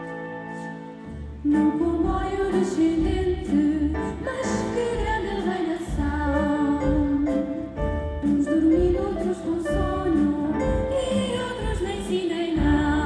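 Live ensemble of strings, winds and percussion accompanying a children's choir singing. About a second and a half in, the full ensemble and choir come in louder over low drum beats.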